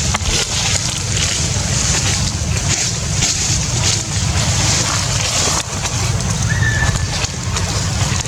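Steady outdoor noise, a low rumble under a hiss, with one brief high chirp about six and a half seconds in.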